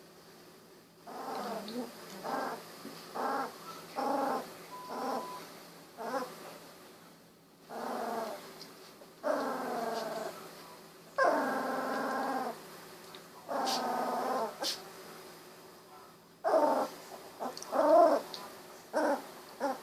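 Newborn Golden Retriever puppies, about 16 days old, whimpering and crying in a series of short pitched calls, with three longer drawn-out cries in the middle.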